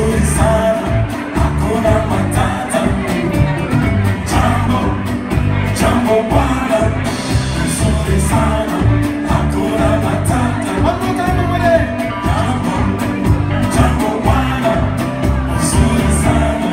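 Live band of electric guitar, electric bass and drum kit playing an upbeat song with a steady beat, with singing over it.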